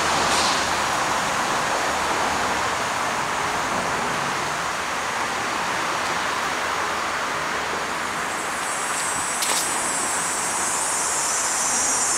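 Steady rushing noise of city traffic, with a high hiss building in over the last few seconds and a single click a little before the end.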